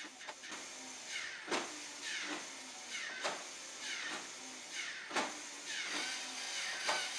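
LEGO Mindstorms motors and gears working the clock's flip segments: a whirring mechanism with a sharp click about every second and three-quarters, four times in all, each followed by short falling whines.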